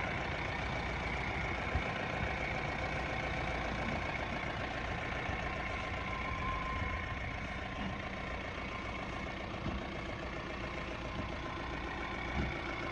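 Mahindra Bolero Camper's four-cylinder diesel engine running steadily at a low idle as the pickup crawls slowly down a dirt slope.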